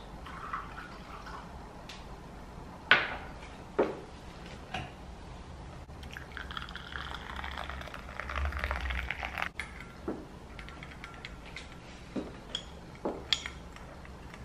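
A few sharp clinks of crockery, then hot water poured from a kettle into a ceramic coffee cup for about three seconds. Near the end a metal spoon clinks against the cup while stirring.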